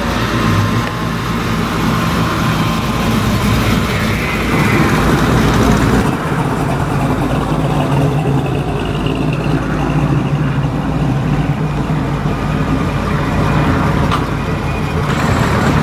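Gasser hot rod engines running as the cars drive slowly past. First comes a 1946–48 Ford coupe gasser. After a change about six seconds in, a 1955 Chevrolet gasser follows.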